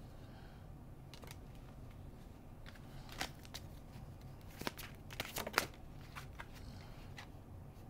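Tarot cards being shuffled and handled: scattered soft flicks and sharp snaps, most of them between about three and six seconds in, over a faint low room hum.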